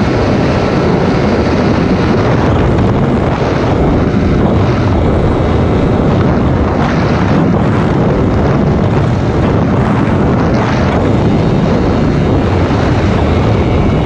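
Yamaha DT 125 two-stroke single-cylinder motorcycle under way, its engine running steadily under a loud rush of wind on the microphone.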